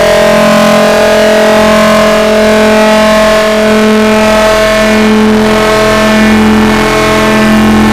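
Fart sound effect repeated and stacked so densely that it merges into one loud, continuous droning buzz of many steady tones.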